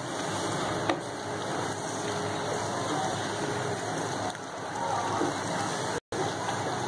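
Wooden spoon stirring a thick, simmering spinach and chicken curry in a non-stick pan: wet stirring and bubbling over a steady hiss, with a small click about a second in.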